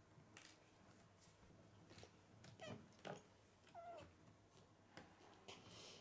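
Faint clicks of K'nex plastic rods and connectors being snapped and pushed together, with a couple of brief falling squeaks in the middle.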